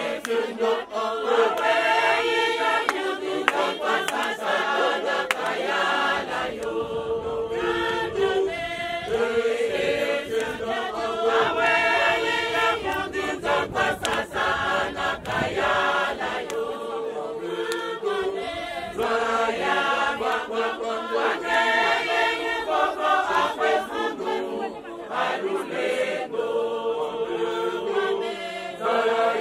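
Church choir of many women and men singing a hymn together, phrase after phrase with short breaks between.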